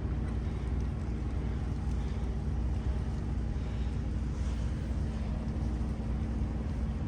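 An engine idling steadily: a low rumble with a constant hum.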